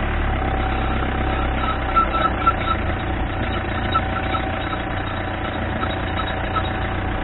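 BMW E46 320d's four-cylinder turbodiesel engine idling steadily just after starting, with a few short ticks about two seconds in.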